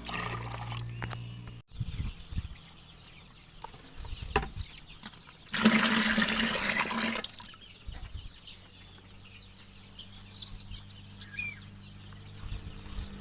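Chickens clucking. About halfway through there is a loud rushing noise lasting about two seconds.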